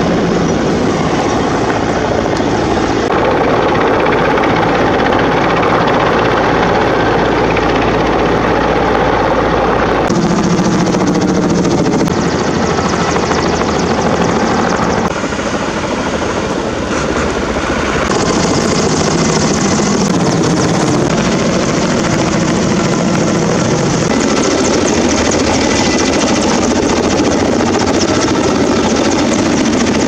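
Firefighting helicopters flying overhead: steady rotor and turbine engine noise, which changes abruptly several times.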